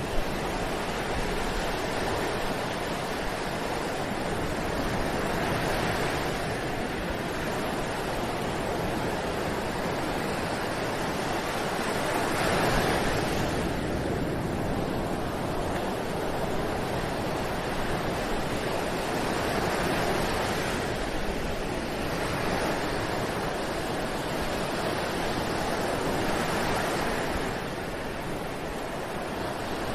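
Ocean surf breaking on a beach, a continuous wash of waves that swells and eases about every six or seven seconds. A short click sounds just after the start.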